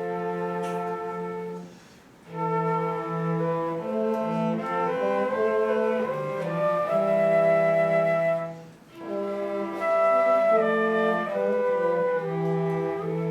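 Instrumental music: slow sustained melodic notes over a held low note, in phrases with two short breaks.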